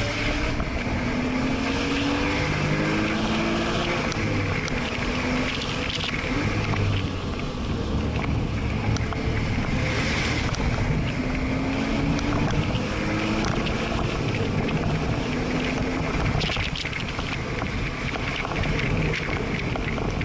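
Porsche flat-six engine heard from inside the cabin under hard driving, its revs climbing and dropping several times, with wind and road noise over it.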